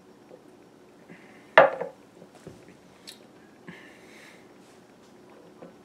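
A drinking glass knocked once against a hard surface about a second and a half in, followed by a few light clicks and handling sounds.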